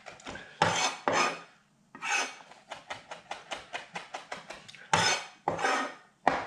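Chef's knife rock-chopping parsley on a plastic cutting board: a fast run of light blade taps, about five a second, broken four times by louder scrapes of the knife against the board.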